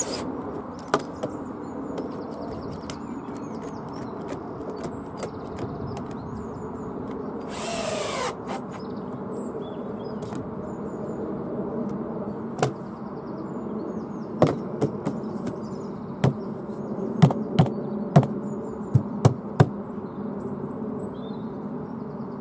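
Cordless drill whirring briefly about eight seconds in and spinning down, over a steady low buzzing hum. From about 14 s a run of sharp clicks follows as one-handed bar clamps are squeezed tight onto the timber frame.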